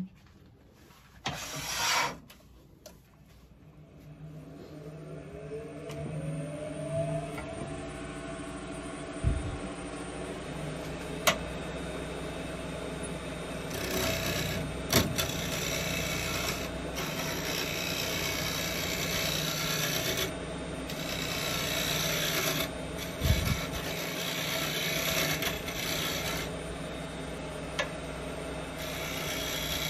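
Wood lathe starting up, its hum rising in pitch as it spins up. From about halfway through, a scraper takes a light scrape across the face of the spinning Blackbutt blank, in repeated bursts of scraping.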